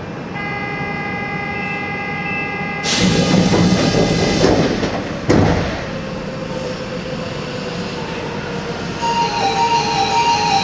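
Osaka Metro series 70 linear-motor subway train at a station stop. A steady warning tone sounds for about two seconds, doors close with a rush of air and a sharp thump about five seconds in, and near the end the stepped, musical whine of the VVVF inverter starts as the train pulls away.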